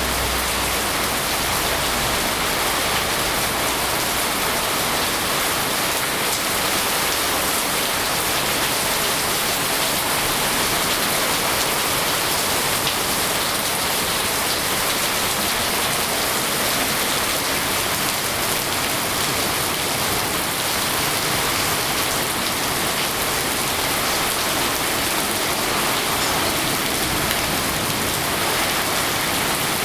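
Steady rain falling: a dense, even hiss with a fine patter of drops, unchanging throughout.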